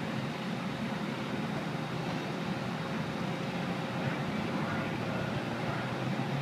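Steady rumbling noise from aboard an amusement-park swing ride in motion, with a faint steady hum that fades out about four seconds in.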